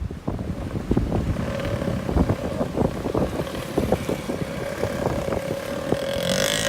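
A motor running with a steady hum, amid wind buffeting the microphone in irregular thumps.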